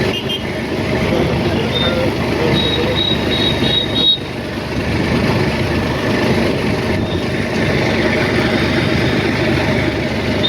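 A vehicle engine running steadily, with a brief knock about four seconds in.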